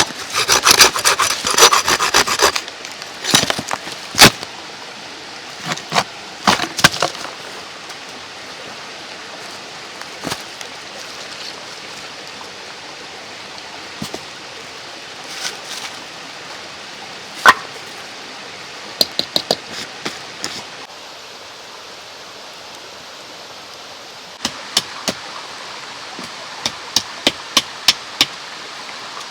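Hand saw cutting through wood in quick rasping strokes for the first couple of seconds. Then scattered knocks and clicks of wood being handled, over the steady rush of a mountain stream.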